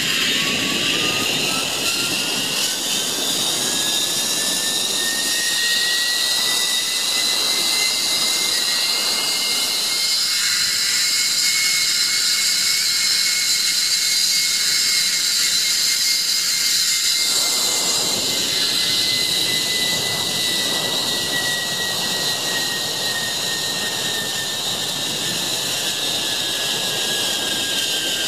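Zipline trolley pulleys rolling along the steel cable, a whine whose pitch climbs as the rider gathers speed, holds high through the middle of the run and sinks slowly as he slows near the end, over a steady rush of air noise.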